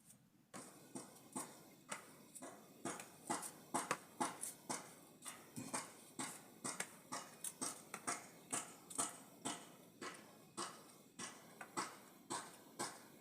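Knife chopping food on a cutting board: a steady run of sharp knocks, about two to three a second, starting about half a second in.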